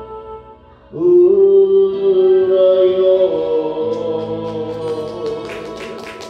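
A male singer holds one long sung note over music. The note rises, then falls and fades away. Near the end, quick evenly spaced claps start.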